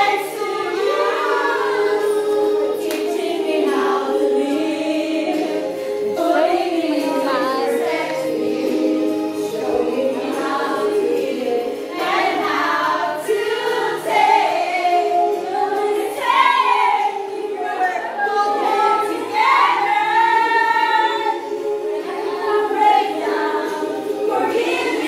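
A group of voices singing a song together, choir-like, over music.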